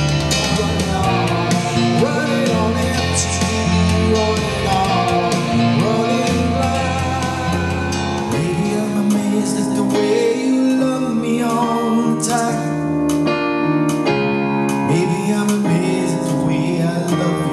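A man singing a song while playing a Nord stage keyboard, with fuller accompaniment behind him. About halfway through, the music changes as the medley moves into the next song.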